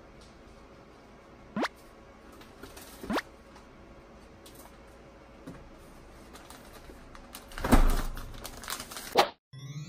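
Cats eating a snack: soft clicking and crinkling chewing sounds, with two short rising squeaks a second and a half apart. About eight seconds in a sudden loud rustling clatter, and another shortly after; music begins near the end.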